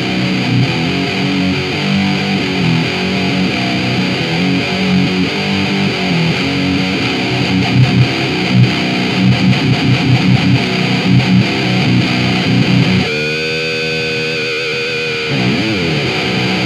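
High-gain distorted electric guitar riffing through an Orange Micro Dark amp with its gain on full, a breadboarded 2N5089 preamp boost and a Marshall 4x12 cabinet, picked up by a microphone on the cab. About three-quarters of the way through, a chord is held and rings with a wavering sustain, then the sound cuts off suddenly.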